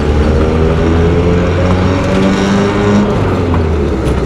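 1975 Chevrolet Cosworth Vega's 2.0-litre dual overhead cam four-cylinder engine pulling the car along the road, its note rising gradually in pitch as it accelerates, over tyre and road noise.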